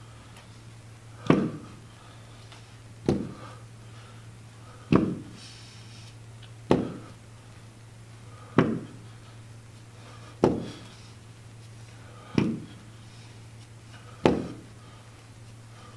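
Dumbbells set back down on a gym floor during alternating plank rows: a single knock about every two seconds, eight in all. A steady low hum runs underneath.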